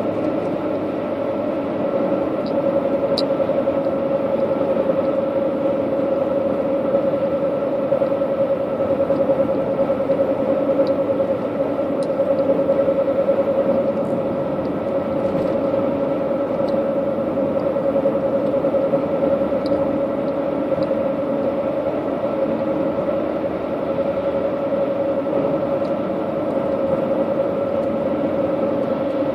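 Steady drone of a car driving at highway speed, heard from inside the cabin: engine and tyre noise with a constant hum, and a few faint ticks.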